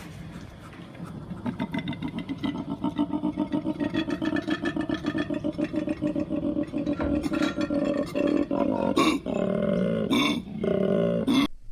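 A large animal's rough, pulsing growl, about five pulses a second, followed from about eight seconds in by several louder separate calls that end abruptly.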